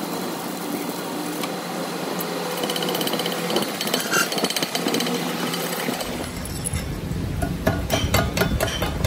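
Stick welder's steady crackling hiss as the arc runs on the steel axle, then, near the end, a run of sharp hammer strikes on the metal.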